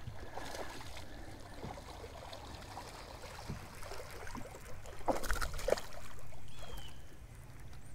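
Water trickling and lapping around a fishing boat, with a few sharp clicks and knocks about five seconds in.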